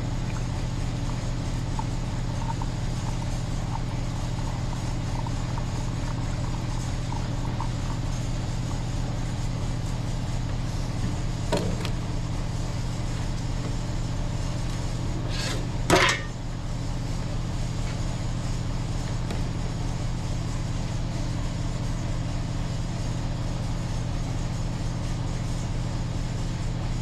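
A steady low hum runs throughout. Paint containers being handled on a workbench while mixing automotive paint knock once about eleven seconds in, then clatter more loudly about sixteen seconds in.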